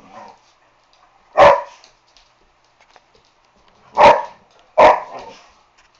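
A dog barks three times: once about a second and a half in, then twice close together near the end. These are play barks during a rough game of tug-of-war over a rope toy.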